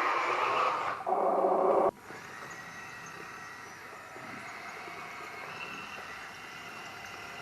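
Small motor-driven machinery of an RC model running loudly, stopping abruptly about two seconds in and leaving a quieter steady whir.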